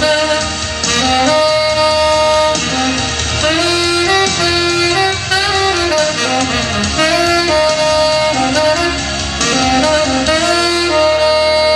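Instrumental contemporary worship music: a melodic lead line of held, gliding notes over sustained chords and bass.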